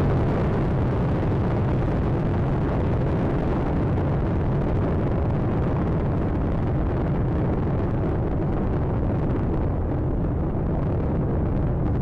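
Space Shuttle Atlantis climbing after liftoff: the steady, deep rumble of its two solid rocket boosters and three main engines at full thrust, its upper crackle thinning slightly near the end.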